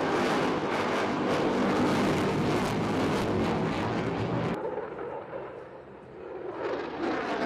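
Lockheed Martin F-22 Raptor's twin Pratt & Whitney F119 turbofans: loud jet noise with a crackle while the jet manoeuvres. About halfway through, the sound drops abruptly to a much quieter, duller rumble, then swells again near the end.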